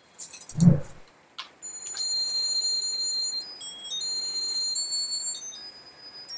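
Musical reindeer-antler headband playing a tinny electronic Christmas tune in thin, high beeping notes, starting about one and a half seconds in.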